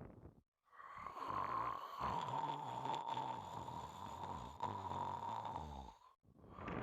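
A sleeping pet snoring: the end of one breath at the start, then one long rattling snore of about five seconds with a steady whistling tone through it, and the next breath starting near the end.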